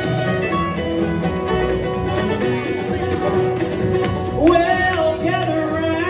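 A live country band playing, with plucked guitars over an upright bass. About four and a half seconds in, a long note glides up and holds.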